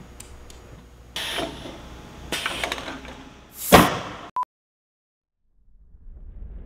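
A golf-ball launcher with a tube barrel fires a ball. Two shorter noisy bursts come first, then a loud blast from the launcher's muzzle about two-thirds of the way in. A short electronic beep follows, then a moment of dead silence before a low rumble begins to swell.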